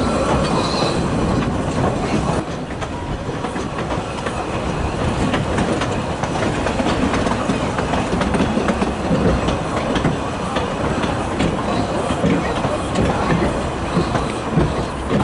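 Narrow-gauge railway carriage rolling along the track, heard from aboard: a steady rumble with scattered clicks of the wheels over the rail joints.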